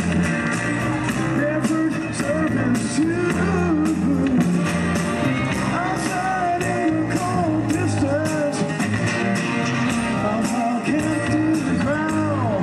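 Live rock-style band music: a man singing over electric guitar with a steady beat.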